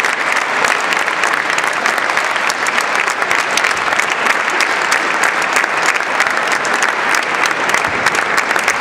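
Audience applauding steadily, a dense patter of many people clapping.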